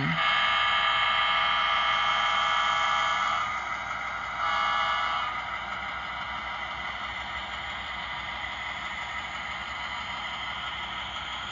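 Model train running on its layout, its horn sounding one long steady blast of about three seconds and then a short blast about four seconds in, followed by the steady rolling clatter of the cars on the track.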